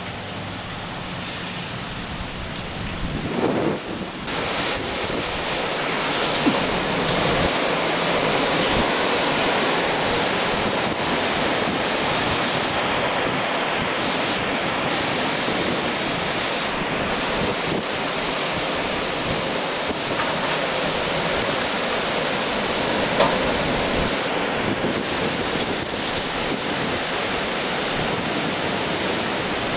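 Steady rushing of hurricane wind and rain outside, growing louder about four seconds in and then holding steady.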